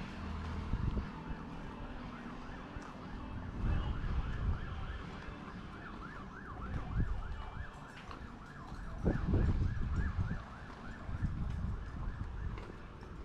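A siren in a fast, repeating rising-and-falling yelp, several cycles a second, fading out after about nine seconds. Gusts of wind rumble on the microphone.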